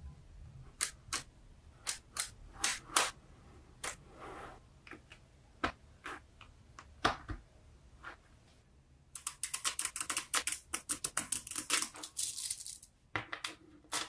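Small magnetic balls clicking against each other as they are pressed into a flat sheet and handled: scattered single clicks, then a fast run of clicking for about four seconds.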